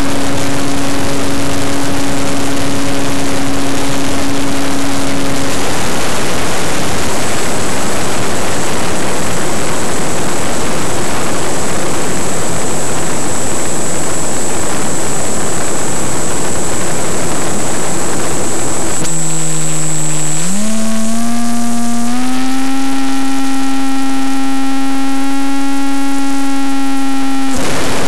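Onboard audio from an RC T-28 Trojan model airplane in flight. Loud wind rush over the microphone alternates with the steady hum of the plane's motor. About two-thirds through, the wind drops away and the motor's pitch climbs in several steps as it speeds up, until the wind rush returns near the end.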